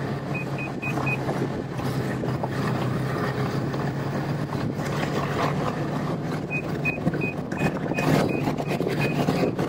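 Snowmobile engine running steadily while climbing uphill. Two runs of short, evenly spaced high beeps, several a second, sound over it: a few about half a second in, and a longer run near the end.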